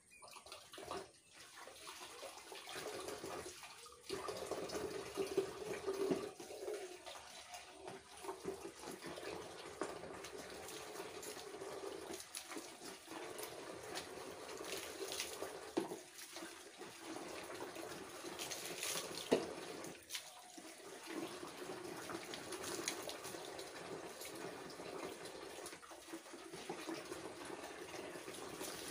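Water running and splashing as shampooed hair is rinsed, with a few brief breaks in the flow.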